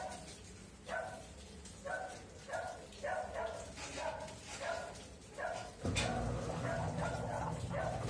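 A dog barking repeatedly in the background, short barks roughly once a second. About six seconds in, the top-load washing machine starts a steady low hum.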